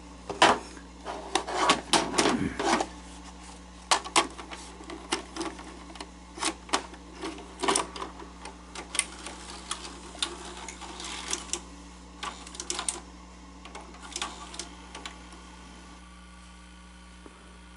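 A Betamax cassette being handled and loaded into a Sony SL-S600 Betamax deck: a run of irregular mechanical clicks and clunks from the cassette and the deck's loading mechanism, thinning out about fifteen seconds in to a faint steady hum.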